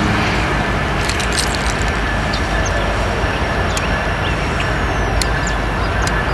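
Freight train cars rolling past: a steady noise of steel wheels on rail, with a few faint clicks.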